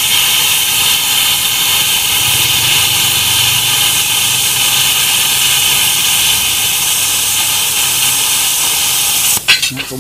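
Electric welding arc running steadily on a thick 12 mm plate, a constant loud hiss with a faint steady whine and hum. It cuts off sharply near the end.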